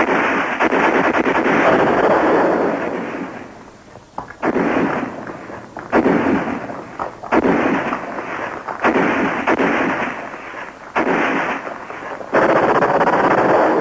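Battle gunfire: a long burst of rapid fire, then shorter bursts that start sharply about every second and a half. It is covering fire from infantry weapons and sounds dull, with little treble.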